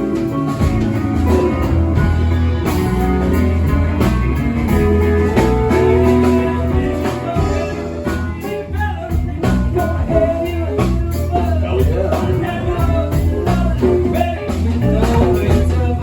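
A live band playing a bluesy rock tune: guitar lines over a steady bass, with drum hits.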